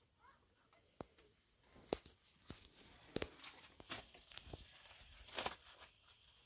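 Thin flatbread being torn and handled: scattered small clicks and short papery rustles, the longest about five and a half seconds in.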